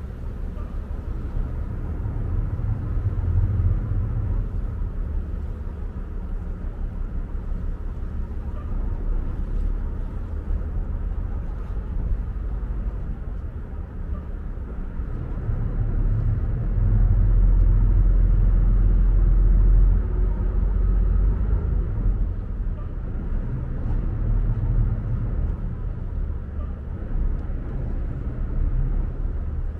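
Low, steady rumble aboard a passenger ferry, most likely its engines, swelling louder for about three seconds some seventeen seconds in. A faint steady high hum sits above it.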